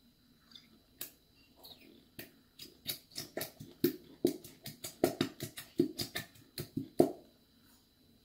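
Small plastic squeeze bottle of clear glue being squeezed hard over and over to empty it. Its plastic gives a fast run of sharp clicks and crackles, about three or four a second, starting about a second in and stopping shortly before the end.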